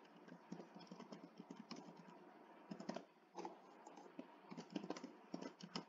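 Faint typing on a computer keyboard: a run of quick, irregular key clicks as a password is entered, with a brief pause a little past halfway through.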